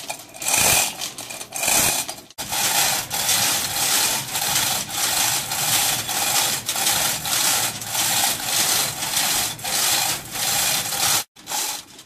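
Hand-pulled chain hoist lifting a heavy gearbox: the chain runs through the hoist in a rough, rhythmic rasping rattle, about two pulls a second, with two brief breaks.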